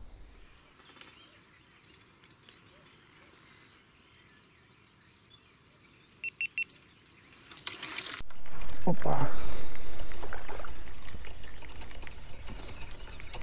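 Insects chirping in a steady high trill, joined about eight seconds in by a loud rushing noise that swells and then slowly fades.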